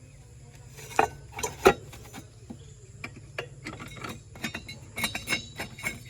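Heavy diesel machinery engine running steadily under a series of irregular sharp knocks and clinks. The two loudest come about a second in and just before two seconds, and smaller ones follow.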